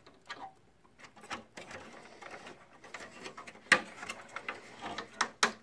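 Hands working a ballast circuit board onto its connector pins and plastic standoffs inside a projector's metal chassis: irregular scraping and rustling of board and wires, with a few sharp clicks, one about two-thirds of the way in and a couple more near the end.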